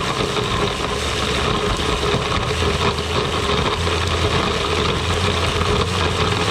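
Countertop blender motor running steadily at high speed, liquefying pickerel scraps and water into a slurry, then cutting off abruptly at the very end.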